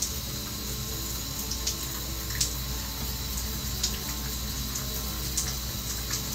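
Shower water running steadily, with faint background music under it and a few brief faint ticks.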